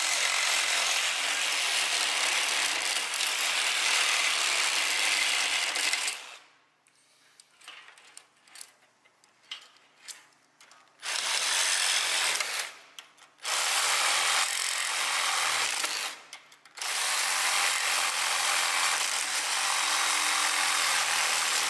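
Cordless reciprocating saw cutting through the steel wire cables of a catalytic converter cable cage. It runs for about six seconds and stops, leaving only a few faint clicks for several seconds, then cuts again in three more runs, the last about five seconds long.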